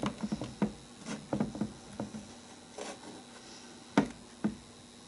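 Scattered light clicks and taps of multimeter test probe tips being pressed and scraped against the terminals of a small lithium-ion motorcycle battery, with a sharper click about four seconds in.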